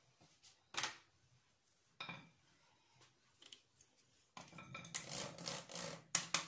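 Metal ring cutter clinking and knocking against the stone countertop twice, then about two seconds of scraping and rustling handling ending in a sharp clink.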